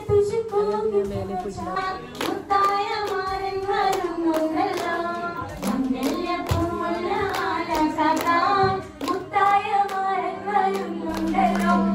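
A person singing a song, with hand claps. A steady low hum comes in near the end.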